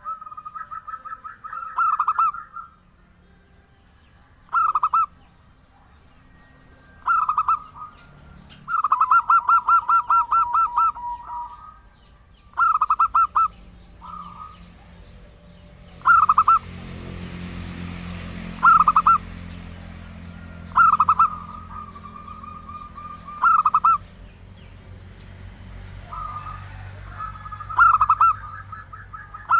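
Female zebra dove (perkutut) cooing, the call given to draw in a male: short bursts of quick staccato notes every two or three seconds, with one longer rolling run about nine seconds in. A faint rushing noise rises in the background around the middle.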